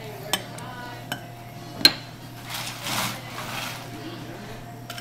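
Wooden muddler knocking and grinding in a glass as strawberries and lemon wedges are muddled: a few sharp knocks against the glass, the loudest about two seconds in, then a short rustling scrape.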